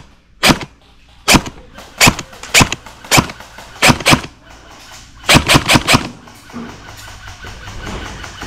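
Airsoft guns firing: single shots every half second to a second, then a rapid burst of about six shots a little past halfway.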